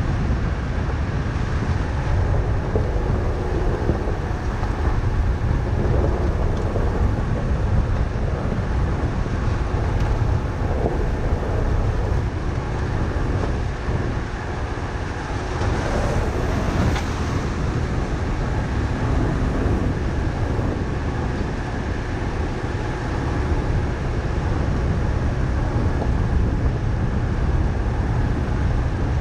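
Vehicle driving steadily along a gravel forest road: a constant low rumble of tyres on loose gravel and road noise, with wind noise on the microphone.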